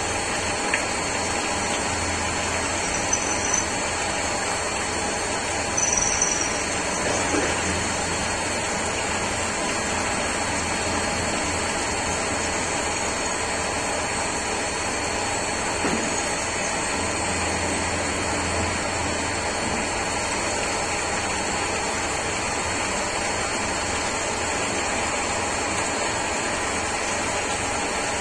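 Falcon CNC lathe running steadily while cutting under flood coolant. The spindle and machine hum under a steady high whine, with coolant splashing over the spinning chuck. A few light knocks come about six seconds in.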